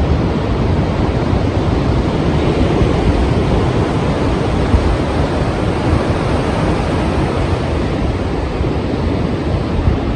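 Strong sea surf: waves breaking in a continuous, steady wash of rushing water.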